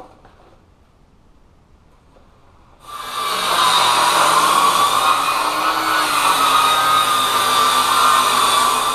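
Circular saw starting about three seconds in and running steadily as it rips a 2x6 lengthwise, its pitch wavering slightly under the load of the cut.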